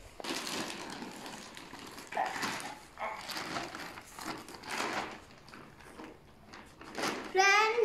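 Black plastic polythene bag rustling and crinkling in irregular bursts as it is pulled open by hand. Near the end a child's voice comes in, louder than the rustling.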